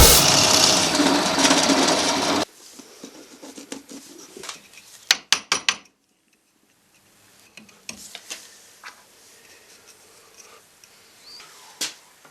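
A loud, dense sound stops abruptly about two and a half seconds in. Then quiet workshop handling of wood and tools follows, with rubbing and scattered knocks, a quick run of four sharp knocks about halfway through, and a single sharper knock near the end.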